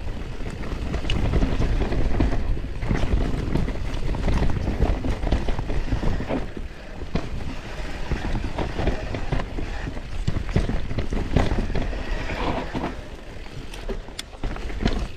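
YT Capra Core 3 MX mountain bike descending a rough trail: wind buffeting the microphone over the rolling of the tyres on dirt and rock, with scattered knocks and rattles from the bike.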